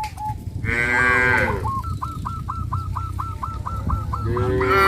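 Cows mooing twice, once about a second in and again near the end. Between the moos a bird chirps in a quick run of short, evenly repeated notes.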